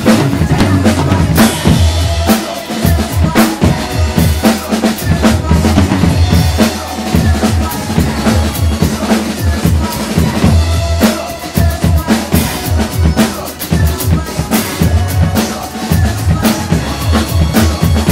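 Live acoustic drum kit played hard in a busy, driving groove, with kick drum, snare and cymbal strokes, over a recorded hip-hop track with a steady bass line spun on turntables.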